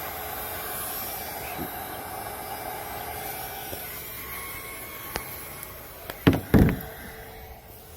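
Heat gun blowing steadily, its rushing noise falling away about four seconds in; then two sharp knocks close together near the end.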